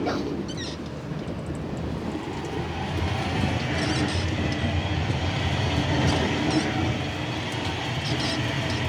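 Steady road and tyre rumble with engine noise, heard from inside a moving car.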